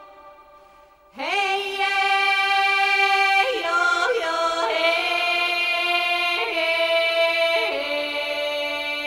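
Soundtrack music led by a singing voice holding long, sustained notes. The voice slides up into its first note about a second in, after a near-quiet moment, then moves between held notes.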